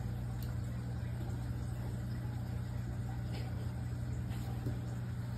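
A steady low mechanical hum, with a couple of faint ticks.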